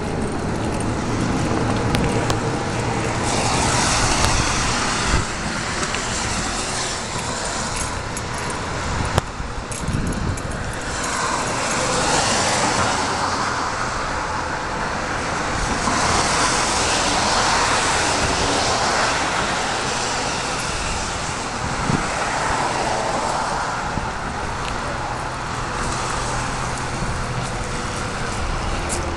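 Road traffic: cars going by one after another, their tyre and engine noise swelling and fading every few seconds.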